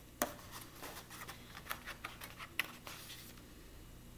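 Paper handling on the pages of a coloring book: a few soft, scattered taps and rustles, with a page being turned near the end.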